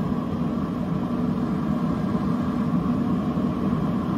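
Traeger pellet grill's fan running steadily, a constant low drone.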